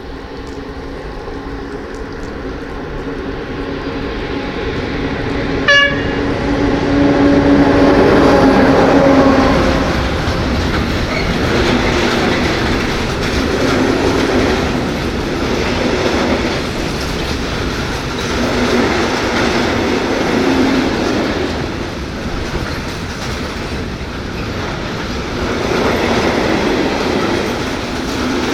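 A freight train of tank wagons approaching and passing close by. The locomotive's steady hum grows louder, with a short horn toot about six seconds in. Then come the rumble and clatter of the tank wagons rolling past, swelling every couple of seconds as each wagon's wheels go by.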